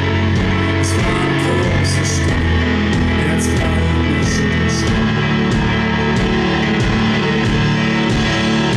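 Live band playing an instrumental passage: stage piano chords with bass and a drum kit, cymbals striking every second or so.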